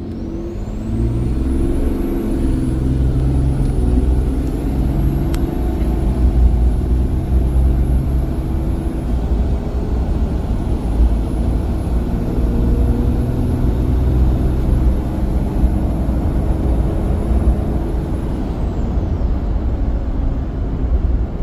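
6.7 L Cummins turbo-diesel in a Ram 2500 accelerating under throttle, with its billet VGT turbocharger whistling over the engine drone. The whistle climbs steeply in the first couple of seconds, holds high and smooth with a brief dip about halfway, and winds down near the end.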